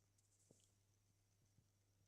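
Near silence: room tone with a faint steady low hum and two tiny clicks.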